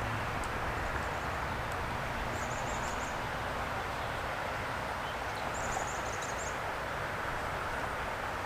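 Steady outdoor background hiss, with a small bird's high, rapid trill of several notes twice: about two and a half seconds in and again about six seconds in.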